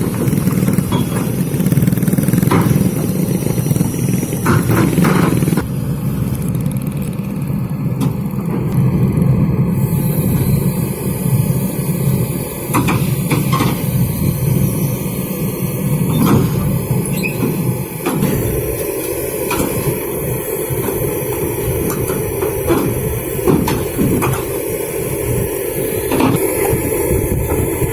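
Excavator's diesel engine running steadily under load, with scattered metallic knocks and clanks as the machine works; the engine sound shifts in character about six seconds in and again around eighteen seconds.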